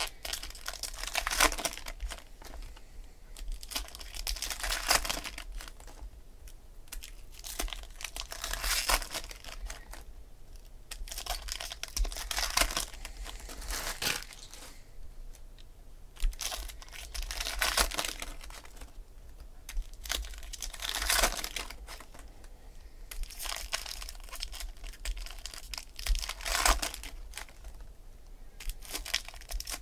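Foil wrappers of Topps Chrome trading-card packs being torn open and crinkled, in short bursts every few seconds.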